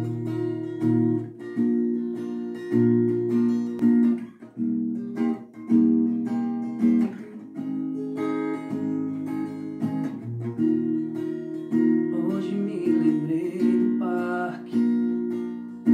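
Cutaway acoustic guitar with a capo, played solo: picked and strummed chords ringing on, at a slow, even pace.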